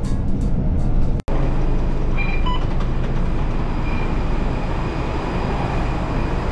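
Steady rumbling running noise of a public-transport vehicle in motion, heard from on board. There is a brief dropout about a second in.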